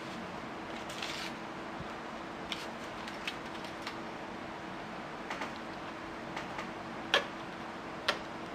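Sparse light clicks and taps of a small plastic spoon and fingers against a plastic tray while the candy sushi rice is worked, with two sharper clicks near the end, over a faint steady hum.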